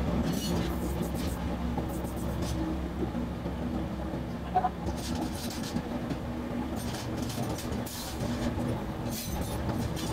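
A steady, low mechanical hum, like a motor running, with several short hissing bursts in the second half, fitting compressed air blown from a hose nozzle during a radiator leak test.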